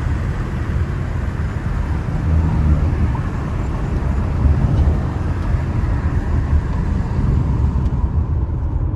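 Lexus V6 engine and exhaust giving a steady low drone while the car cruises, with road noise mixed in.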